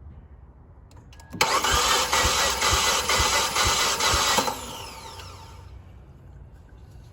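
Fiat 500 engine cranked on the starter for about three seconds during a compression test: a steady whir with an even low pulse about twice a second, then the starter winds down and the engine does not fire. The cylinder reads low compression, under 50 psi like the others, which the mechanic blames on valves bent by fragments of broken spark plugs after diesel was put in the tank.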